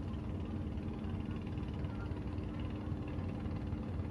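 Boat engine idling with a steady, even hum.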